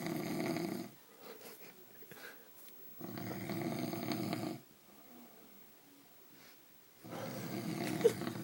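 A sleeping man snoring: three rough, rattly snores, each about a second and a half long, coming about every four seconds. A short sharp click sounds during the last one.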